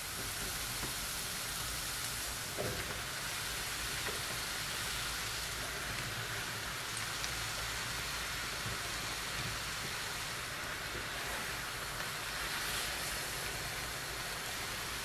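Sliced mushrooms and onions frying in hot oil in a frying pan, a steady sizzle with a few faint soft knocks.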